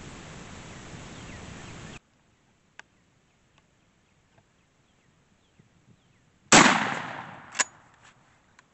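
A shotgun fired once at a wild turkey gobbler about 47 yards off, a sudden very loud blast with a long decaying tail, about six and a half seconds in; the shot went low and the bird did not go down. A shorter sharp crack follows about a second later, and before a cut about two seconds in there is a steady hiss.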